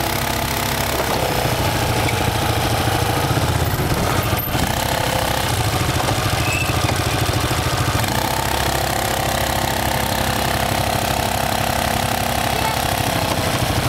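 ATV engines running steadily: a close quad idling, with a second quad crawling slowly up a rutted dirt climb. The engine note shifts slightly about eight seconds in.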